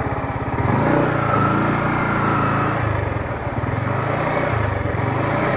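Motorcycle engine revving under load as the bike is ridden over a rough off-road patch, getting louder about a second in and staying up with small rises and falls.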